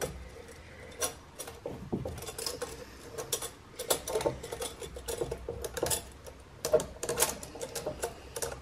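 Irregular metallic clicks, knocks and scrapes of a Pulsar GTX3076 turbocharger being wiggled by hand down onto the exhaust manifold flange, metal catching on metal as it is worked into place.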